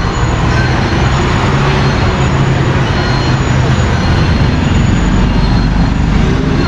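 Steady street traffic noise: engines of passing cars and motorbikes rumbling in a narrow lane.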